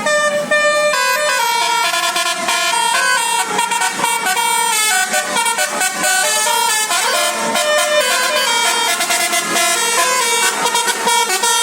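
A bus's 'telolet basuri' multi-tone air horn playing a rapid tune. It starts suddenly, and its notes step up and down in quick succession.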